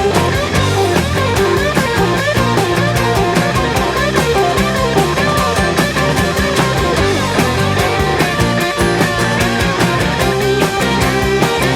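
Southern rock recording playing loudly: an extended electric guitar solo with bending notes over steady, driving drums.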